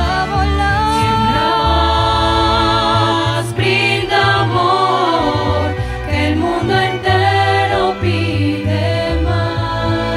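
A Christmas song performed by a string ensemble (violins, cellos and double bass) with a small mixed choir singing.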